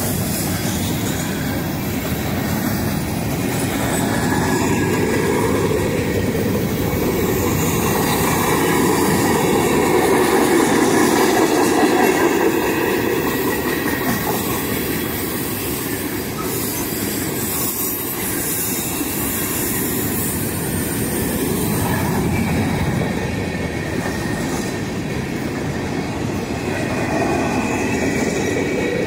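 A freight train's cars rolling past at close range: covered hoppers, gondolas and tank cars, their steel wheels making a steady, loud rumble on the rails.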